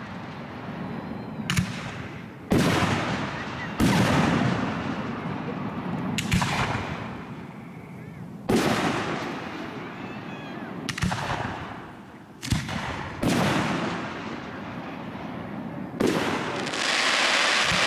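Aerial firework shells bursting in a finale: about nine sharp booms, each trailing off in a long echo. Near the end a steady hiss takes over.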